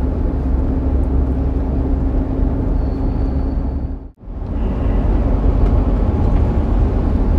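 Lorry cab interior noise while driving: steady low engine drone and road rumble, dropping out briefly about four seconds in before carrying on.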